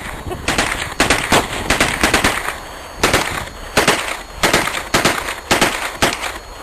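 Automatic gunfire outdoors: several short bursts of a few shots each, with single shots in between, fired on and off throughout.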